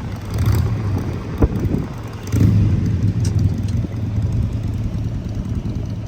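Vehicle engine running steadily on the move, with a low hum throughout. There is a sharp knock about one and a half seconds in, and the sound gets louder a little after two seconds.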